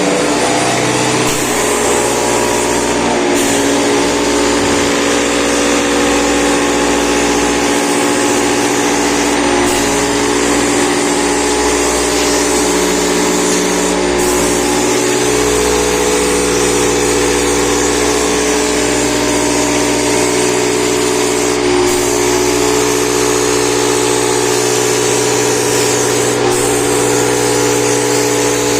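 Air compressor running steadily: an even motor hum with a loud hiss of air over it.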